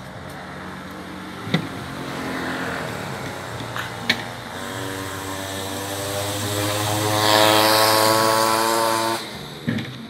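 An engine running, its pitch rising slowly as it grows louder over about five seconds, then cutting off suddenly near the end. Sharp knocks about a second and a half in and about four seconds in.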